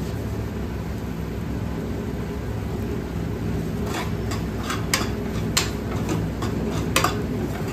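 A steel spoon clinking and scraping against a steel kadhai as a masala is stirred: a few sharp clicks from about four seconds in, over a steady low hum.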